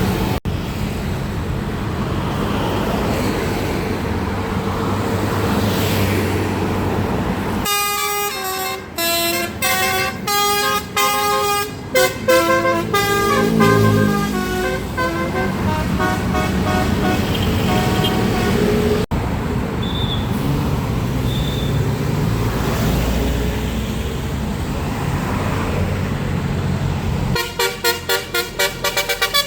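Bus engines and traffic noise, then about eight seconds in a Basuri multi-tone 'telolet' bus air horn plays a tune of quick notes stepping up and down in pitch for several seconds. Near the end the horn starts again with a rapid string of short notes.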